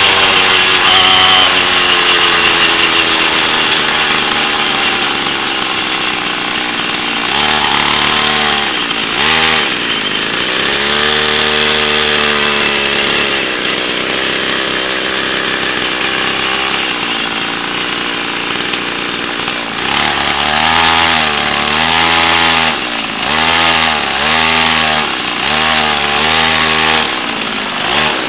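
A 49cc two-stroke pocket bike engine on a homemade chopper bicycle, buzzing under way. Its pitch falls at first, swells up and down in the middle, and near the end is revved up and down in about six quick blips.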